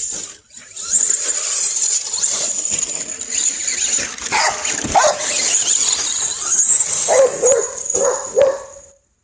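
Traxxas Slash RC car's electric motor giving a steady high whine that swoops up and down in pitch as it speeds and slows, with a dog whining and yelping over it, about halfway through and again near the end.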